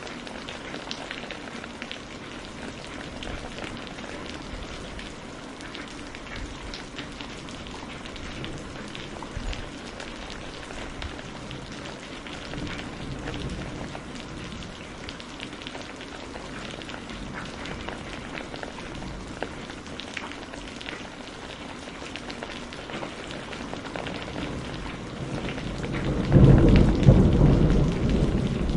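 Steady rain falling, with many small drop ticks. Near the end a low rumble of thunder swells up and becomes the loudest sound.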